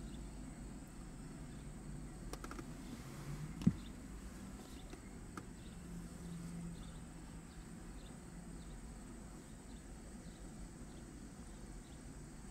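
Faint outdoor road ambience: cars driving over a railroad grade crossing with a low traffic rumble, and a single sharp thump about four seconds in. A faint series of short high ticks runs through the middle, like insects chirping in the weeds.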